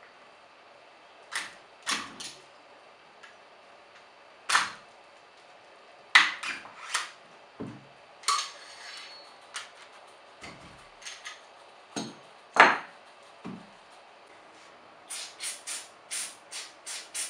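Scattered sharp clicks and knocks of a Remington 870 shotgun's metal trigger-group pins, receiver and pin punch being handled as the gun is taken apart. From about fifteen seconds in comes an even rattle of about three ticks a second: an aerosol can of shotgun cleaner being shaken, its mixing ball knocking inside.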